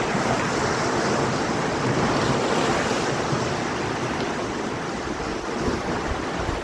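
Sea surf washing and breaking on the shore in a steady loud rush, with wind buffeting the microphone.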